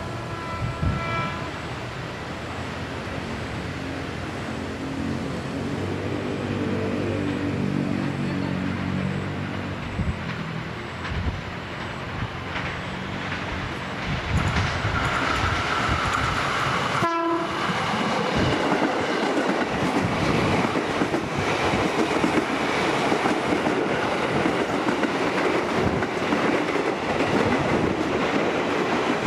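Electric commuter trains (JR 203 and 205 series EMUs): a horn sounds briefly about a second in as a train approaches, with its drone growing louder. Later a train passes close at speed, with loud, steady wheel and rail rumble and clatter.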